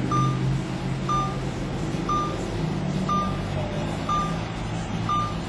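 Street traffic with a vehicle engine running, and a short, high electronic beep repeating once a second, six times.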